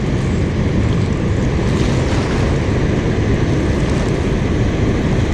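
Steady rush of water pouring through an open dam spillway, mixed with wind buffeting the microphone.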